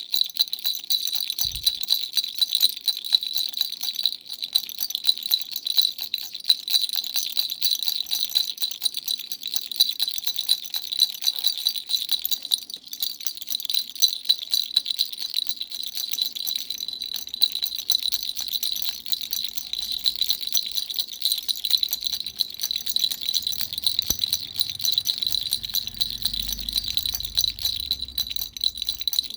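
Dumbbell-shaped baby rattle shaken without pause: a fast, dense jingling rattle with a steady high ringing tone over it.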